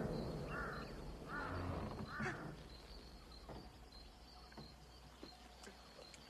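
A duck quacking three times in quick succession, harsh calls about a second apart, then falling quiet.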